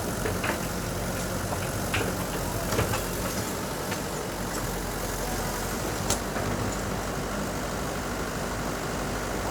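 Diesel engine of heavy construction machinery running steadily at a low, even speed, with a few sharp knocks or clanks about 2, 3 and 6 seconds in.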